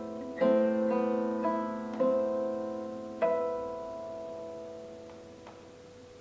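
Two classical guitars playing together: a few plucked chords, the last, a little over three seconds in, left to ring and slowly die away.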